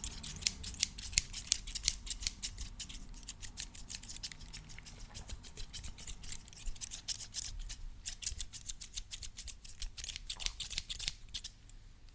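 Scissors snipping open and shut in a quick run of crisp clicks, several a second. The snips thin out in the middle and come thick again near the end.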